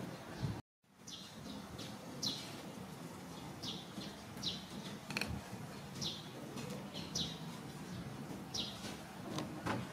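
Bird chirping: short high chirps, each falling in pitch, repeating every half second to a second over a steady outdoor hum, with a few sharp clicks near the end.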